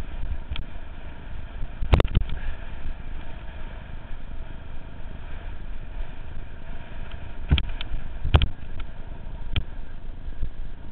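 Mountain bike rolling along a rutted dirt track, heard from a helmet camera: a steady rolling noise from the tyres and the ride. Sharp knocks from jolts over bumps come about two seconds in and twice near the end.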